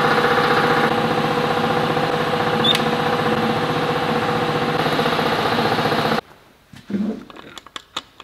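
A small motor running steadily with a fast, even flutter, cutting off suddenly about six seconds in, followed by a few faint clicks and knocks of handling.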